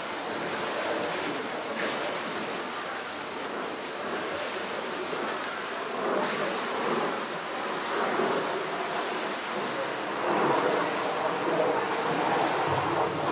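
Cicadas droning steadily at a high pitch, with a rough noisy haze underneath that swells about ten seconds in.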